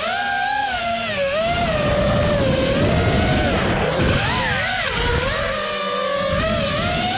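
A high-pitched motor whine that keeps sliding up and down in pitch, with a low rumbling noise underneath.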